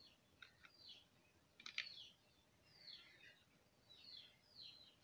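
Faint bird chirps, a series of short downward-sliding calls, with a couple of soft clicks from typing on a computer keyboard.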